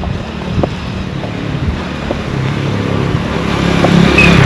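A motor vehicle approaching, its engine growing steadily louder and passing close by near the end with a loud rush of noise.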